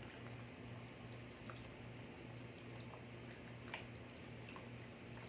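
Canned evaporated milk being poured into a pan of simmering cream sauce: quiet, with a few soft ticks over a low hum.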